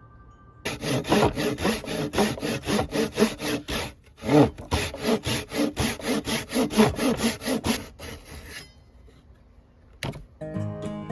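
Hand saw cutting through wood in fast, even back-and-forth strokes, about four a second, with a short break about four seconds in; the sawing stops a few seconds before the end, and acoustic guitar music comes in near the end.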